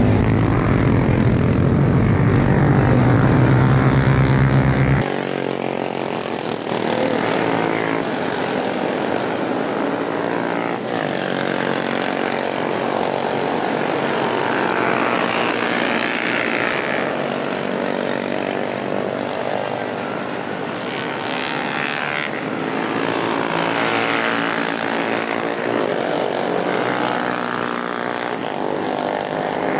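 Small motorcycle engine running hard at racing speed, its note rising and falling as it revs through corners and straights. About five seconds in, the sound switches abruptly from a heavy low drone to a thinner, higher engine note.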